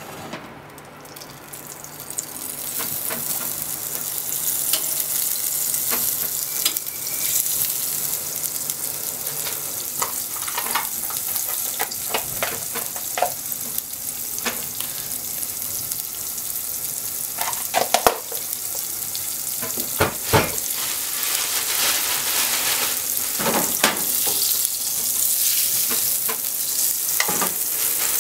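A lump of fat melting and sizzling in a hot nonstick frying pan. The sizzle builds up over the first few seconds and then runs steadily, with a few sharper crackles.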